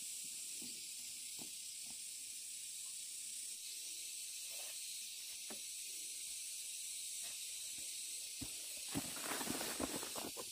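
A steady high hiss, with a few light knocks and a short run of rustling about nine seconds in.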